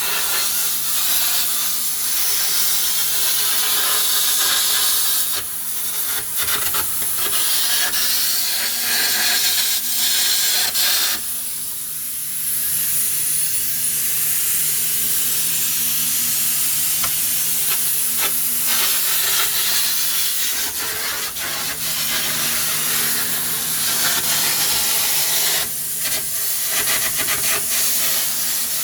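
A loud, steady hiss with a low machine hum underneath, with a few brief dips in the hiss.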